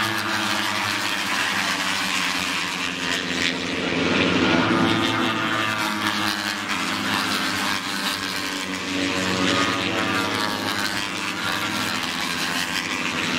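Several racing motorcycles running hard at high revs along the circuit, their engine notes rising and falling in pitch as they pass.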